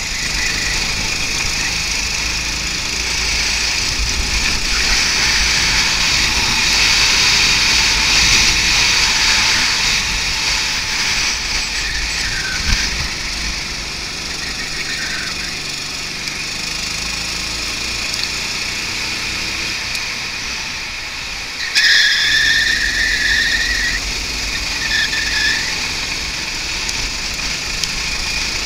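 Go-kart engine running at racing speed, heard from a camera mounted on the kart, under a steady hiss. A high squeal starts suddenly about 22 seconds in and comes back briefly a few seconds later.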